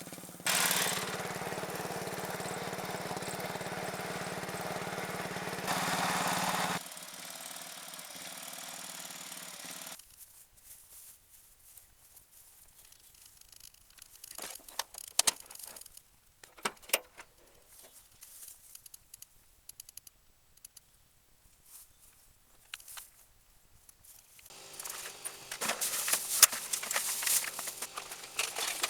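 Massey Ferguson lawn tractor engine running steadily, louder for a moment about six seconds in, then dropping to a quieter idle. After that comes a quiet stretch with scattered clicks and knocks, and near the end a rattling clatter.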